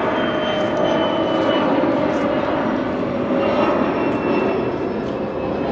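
Aircraft engine droning overhead, its pitch slowly falling as it passes.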